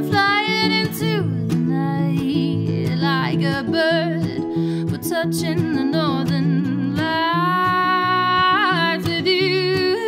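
A woman sings a slow, melodic song with wavering held notes over guitar accompaniment; she holds one long note for a couple of seconds near the end.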